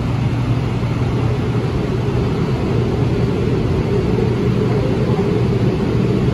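Steady, loud low rumble heard from inside a 2006 AnsaldoBreda P2550 light rail car running along the line: wheels on rail and the running gear, with no breaks or sudden events.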